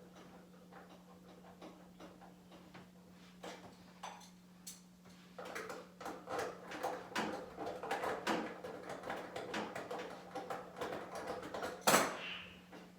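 Irregular clicks and clattering knocks from handling things, growing busier about five seconds in, with one loud knock near the end. A steady low hum runs underneath.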